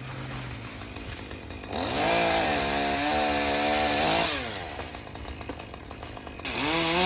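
Chainsaw engine idling, then revved to full throttle about two seconds in and held there for about two seconds before it drops back to idle. It revs up again near the end.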